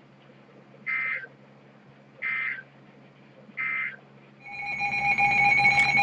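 EAS end-of-message data bursts: three short, identical warbling digital-tone bursts about a second and a half apart, marking the close of the broadcast warning. About four and a half seconds in, a steady electronic alert tone starts and grows louder.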